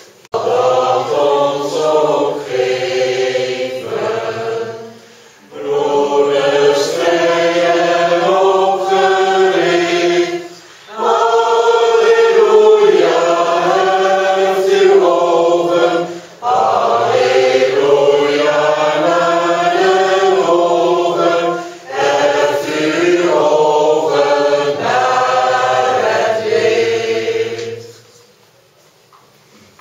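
A group of voices singing a slow hymn in five long phrases, each about five seconds, with short breath pauses between them; the singing stops about two seconds before the end.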